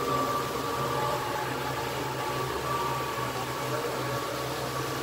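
River cruise boat's engine running steadily under way, a low hum with a steady higher tone, over a constant wash of water and wind noise, heard from inside the passenger cabin.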